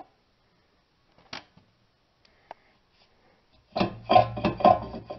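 Rear disc brake caliper being handled against its rotor on the wheel hub: a few light metal clicks, then about four seconds in a quick run of loud metallic clanks and knocks with some ringing.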